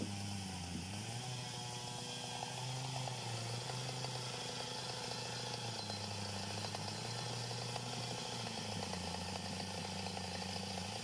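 Stihl chainsaw idling with a steady clatter. Under it runs a lower tone that changes pitch in steps every second or two.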